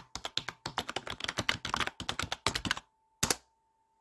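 A fast, uneven run of sharp clicks and taps that stops about three quarters of the way in, followed by one last single click, over a faint steady high tone.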